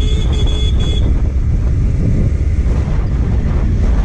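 Motorcycle riding along at speed: engine and road noise with heavy wind rumble on the microphone. A high-pitched beeping tone sounds in short pulses during the first second, then stops.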